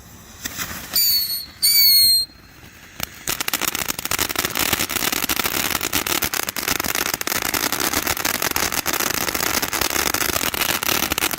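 Cuckoo fountain firework burning: two short falling whistles about a second in, then a dense, steady crackling spray that starts about three seconds in and keeps going.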